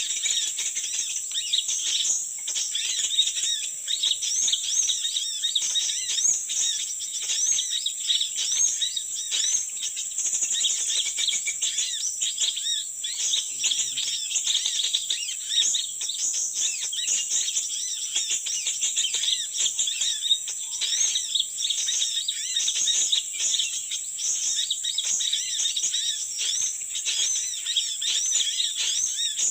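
Small songbirds chirping and twittering continuously, a dense stream of rapid high notes with no pause.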